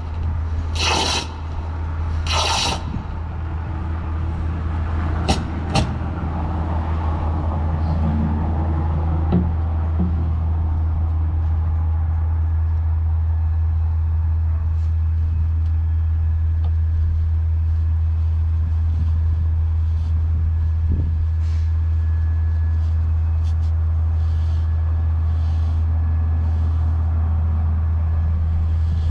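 ASMR sounds from a close microphone with its gain turned all the way up, played through a loudspeaker: three short scratchy rustles in the first few seconds, two sharp clicks a moment later, then faint soft ticks, all over a loud, steady low hum.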